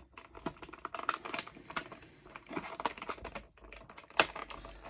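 Hands untwisting wire twist ties to free a toy figure from its plastic packaging: irregular small clicks and rattles, the sharpest about four seconds in.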